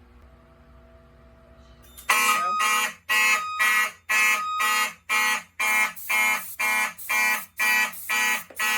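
Fire alarm system going into alarm about two seconds in: Wheelock and Simplex fire alarm horns start sounding in loud, even pulses, about two blasts a second, after a faint steady room hum. The alarm was set off by the Hochiki SLR-24V 2-wire smoke detector sensing canned test smoke.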